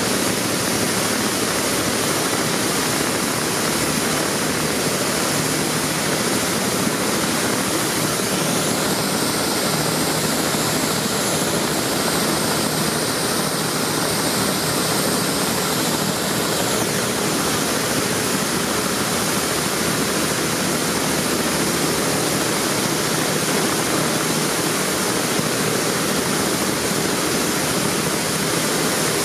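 BK-117 twin-turbine helicopter running on the ground with its rotors turning: a steady, loud rush of turbine and rotor noise.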